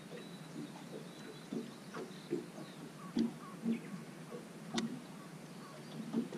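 Water lapping against a small boat's hull in short, irregular slaps, with two sharp clicks, one a little past three seconds in and one nearly five seconds in.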